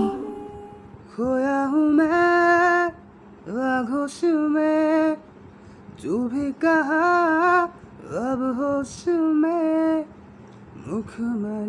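A solo voice singing a slow melody unaccompanied, in about six short phrases of a second or two each, with pauses between them.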